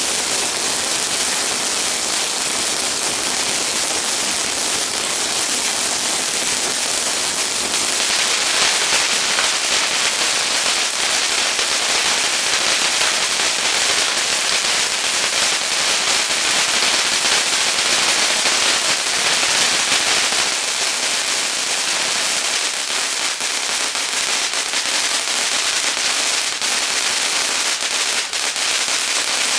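Several consumer firework cakes burning at once in a grand finale: a dense, continuous crackling and fizzing that grows louder and brighter about a quarter of the way in.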